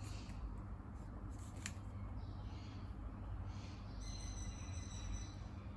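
Faint handling sounds: a couple of light clicks about a second and a half in and soft rustles, over a steady low hum.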